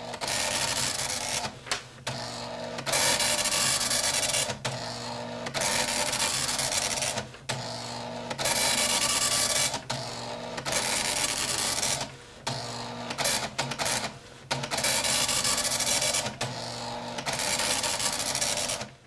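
Computer-printer sound effect running in bursts, each about one to two seconds long with short pauses between, as on-screen caption text is typed out. It stops abruptly at the end.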